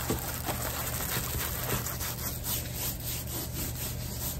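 Large diamond painting canvas rustling and rubbing as it is rolled up into a tube by hand, with a few soft brushing strokes.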